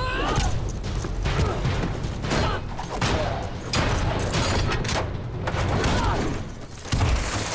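Action-film fight soundtrack: a rapid string of hits, clatters and scuffles with short shouts and grunts over a steady low rumble.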